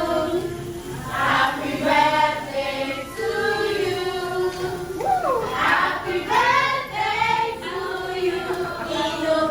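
Several voices singing together in held notes, with a pitch slide about five seconds in.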